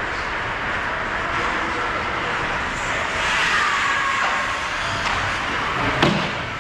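Ice hockey game sound in an echoing rink: skate blades scraping and carving on the ice over a steady arena din, with one sharp knock about six seconds in.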